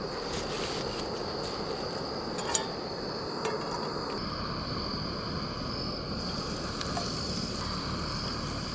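Pieces of bluegill frying in hot oil, a steady sizzle with a couple of small clicks, under a constant high trill of crickets.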